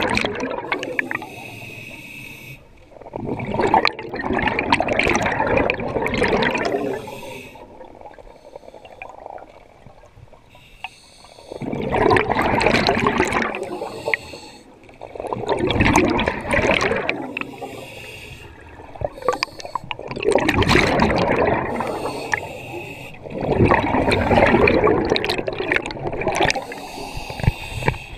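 Scuba diver breathing through a regulator underwater: repeated loud bursts of exhaled bubbles every few seconds, with quieter hissing inhalations between them.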